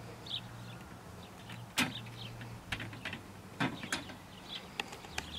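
The metal frame and wire shelf of a Darche Stowaway folding camp kitchen being folded closed: a few sharp clicks and knocks of metal parts, the loudest about two seconds in and another near four seconds in.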